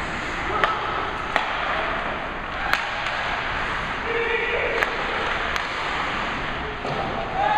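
Ice hockey play on an indoor rink: a steady hiss of skates on the ice, cut by sharp clacks of sticks and puck about five times, with a short shout near the middle.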